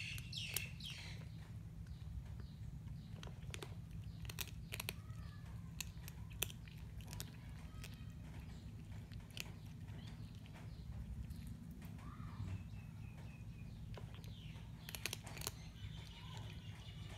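A kitten chewing and licking a slice of soft bread, with irregular small smacks and clicks of its mouth.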